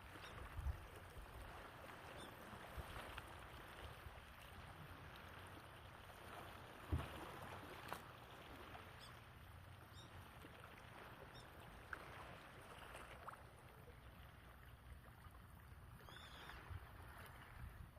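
Faint, gentle lapping of small sea waves against the shore, a soft steady wash with small swells, broken by a few short low thumps, the loudest about seven seconds in.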